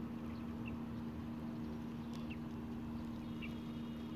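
A steady low hum over a low rumbling background, with a few short faint high chirps.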